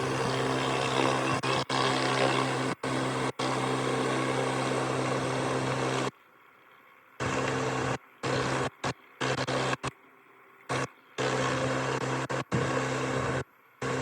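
Pressure washer running, a steady motor hum under the hiss of the water jet. It cuts out abruptly several times, for about a second around the middle and in a run of short gaps after that.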